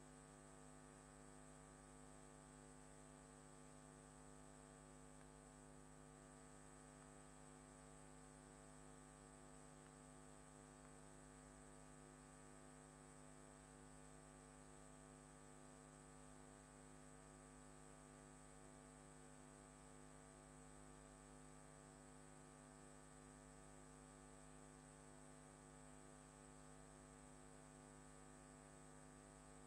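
Near silence with a faint, steady electrical hum made of several constant tones, unchanging throughout.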